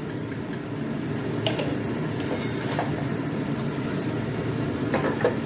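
Drumstick-flower pakoras frying in hot oil in a metal kadai: a steady sizzle, with a few light clinks of a perforated metal slotted spoon against the pan as the fried pakoras are lifted out.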